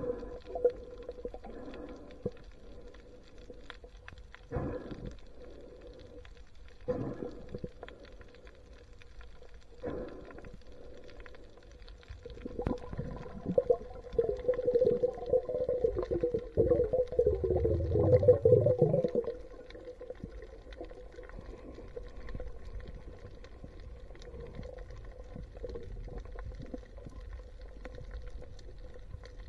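Muffled underwater sound from a camera held under the sea: a steady hum, a few soft knocks, and a louder gurgling, wavering stretch in the middle that dies down again.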